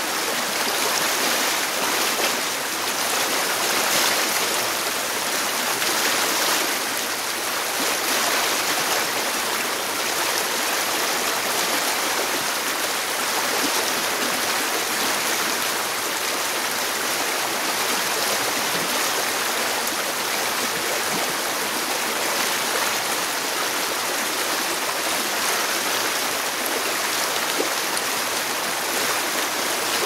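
Small rocky stream rushing over stones in white-water cascades: a loud, steady, even rush of water.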